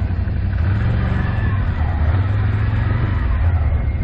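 Can-Am ATV engine running steadily under load as the quad climbs a grassy slope, a constant low drone.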